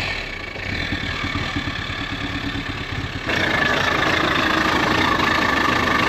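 Audi TT Mk2's four-cylinder engine running roughly just after starting, misfiring: cylinder 4 still has oil in it from a wet compression test, which the owner assumes is burning off. The sound gets abruptly louder about three seconds in.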